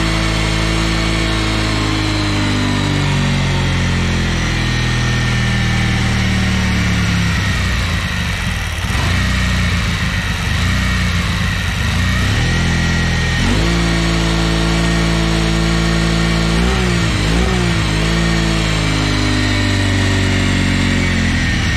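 Honda 3813 lawn tractor's engine running with its speed unsteady. It sags and turns rough about eight seconds in, picks back up about thirteen seconds in, and wavers down and up again around seventeen seconds.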